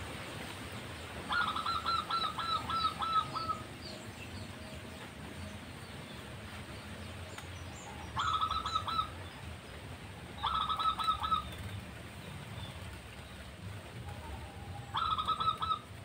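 Zebra dove (perkutut) calling in four bursts of rapid staccato cooing notes: a long run about a second in, then shorter runs about halfway, shortly after, and near the end.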